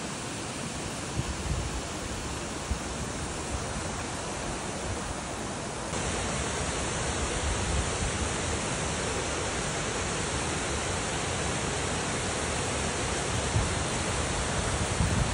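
Waterfall pouring, a steady, even rush of falling water; about six seconds in it turns suddenly louder and brighter.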